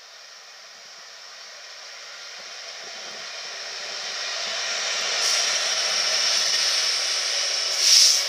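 GB Railfreight Class 66 diesel-electric locomotive, with its EMD two-stroke V12, approaching and passing at the head of a train of loaded gypsum wagons. The sound grows steadily louder as the train approaches and is loudest about eight seconds in, as the locomotive draws level.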